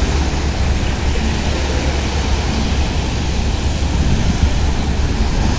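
Steady roar of wind buffeting the microphone over the wash of sea surf, with no breaks or distinct events.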